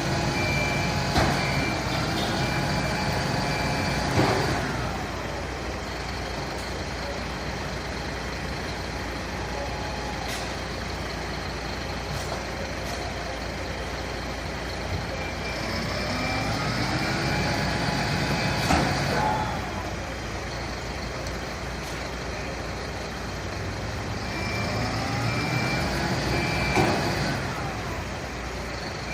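A fire truck's engine rises in pitch three times as the truck manoeuvres. A warning beeper sounds in short repeated beeps at the start and near the end, and sharp air-brake hisses cut in now and then.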